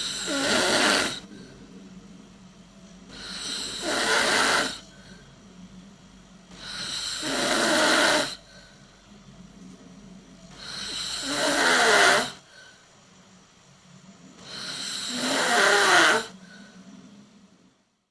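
A person snoring in a steady rhythm: five loud snores about every three and a half to four seconds, each building up over a second or so and cutting off sharply. A faint steady hum lies underneath.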